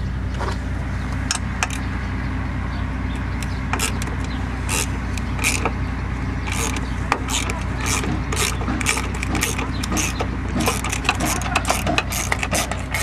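Hand tools clicking and knocking on metal in short irregular runs as the nuts holding a plate in the engine bay are undone, over a steady low hum.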